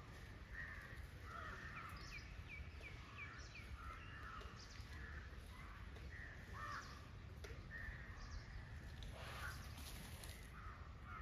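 Several birds calling faintly, with a quick run of about six short, falling chirps about two seconds in, over a steady low rumble.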